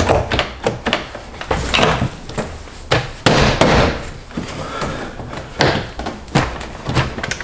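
Plastic door trim panel of a BMW E92 M3 being lifted and worked off the door: a run of sharp clicks and knocks as it shifts against the door and its compression-fit clips, with plastic scraping and rubbing in between.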